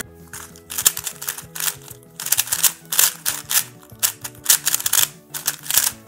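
Plastic MoYu RS3M 2020 3x3 speed cube being turned fast in a timed solve: a rapid, irregular clatter of layer turns. Background music plays under it.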